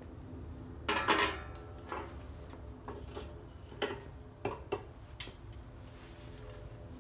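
Metal clatter from a Pit Barrel Cooker's steel drum and its fittings: one loud, ringing clatter about a second in, then a few lighter clinks and knocks.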